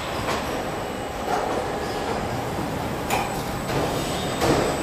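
Car assembly-line machinery running: a steady mechanical rumble with a few sharp metallic clanks, one about three seconds in and a louder one near the end.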